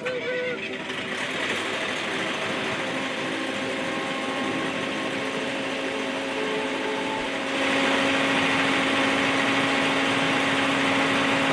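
Case 580C backhoe's engine running steadily, growing louder about seven and a half seconds in.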